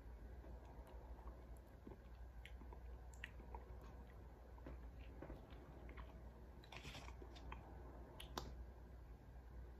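Faint crinkling and crackling of a foil MRE pouch being handled. It comes as scattered small clicks, with a brief cluster of rustling about seven seconds in.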